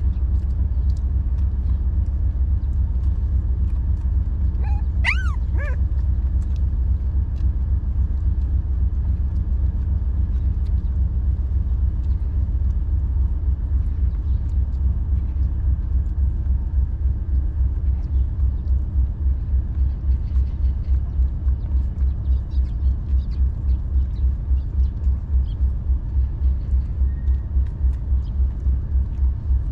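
A puppy gives a brief whimpering yelp, two or three quick high cries about five seconds in. Under it runs a steady low rumble that turns into a fast, regular pulsing in the second half.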